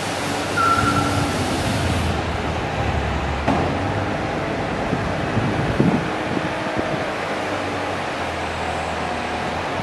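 Cummins diesel engine of a 2012 Laymor Sweepmaster 8C construction sweeper running steadily as the machine drives slowly, with a short high squeak about a second in and a couple of brief knocks.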